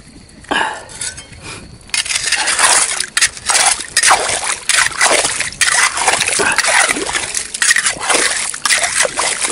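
Shallow seawater and mud splashing and sloshing in quick, irregular strokes as a hand hoe digs into a flooded tidal flat; it starts about two seconds in and keeps going.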